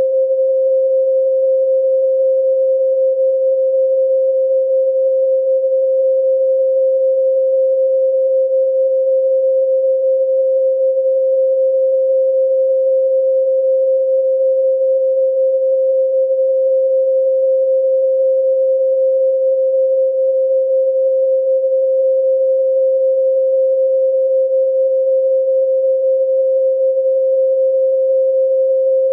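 Pure 528 Hz sine tone held steady at a constant loud level, a single unchanging pitch with no overtones, of the kind played for Solfeggio frequency meditation.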